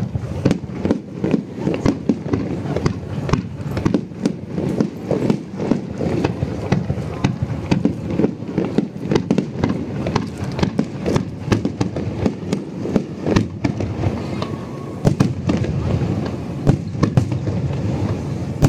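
Aerial fireworks bursting in quick succession: a dense, unbroken run of sharp bangs and crackles, several a second.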